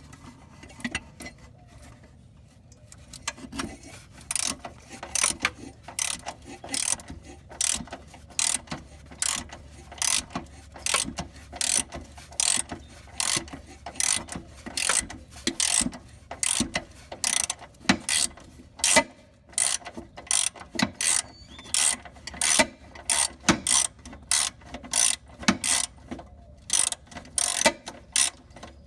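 Hand ratchet clicking in quick back-and-forth strokes, about two a second, as fasteners are worked loose. The clicking starts a few seconds in and keeps an even rhythm.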